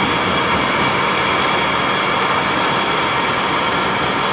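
Web inspection and sheeting machine running steadily at speed: rollers turning and sheets being cut and fed along the conveyor, heard as a constant loud hiss with a low hum underneath.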